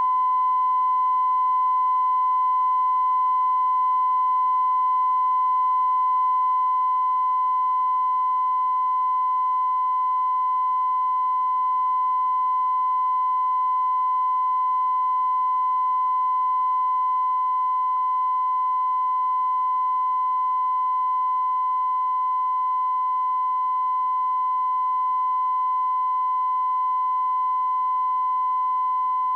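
Steady 1 kHz reference tone played with colour bars at the head of a broadcast videotape, held unbroken at an even level: the line-up tone used to set audio levels.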